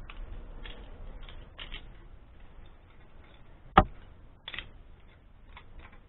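Light clicks and rattles of a steel winch cable and its hook being handled and fed through the winch's fairlead, with one sharp click a little under four seconds in and a smaller one about half a second later.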